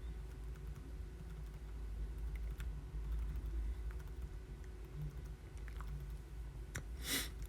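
Faint, scattered clicks of computer-keyboard typing over a steady low electrical hum, with one short hiss about seven seconds in.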